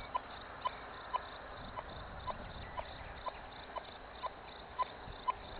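Metal detector with its iron-mask mode switched on, giving short, even beeps, about two a second.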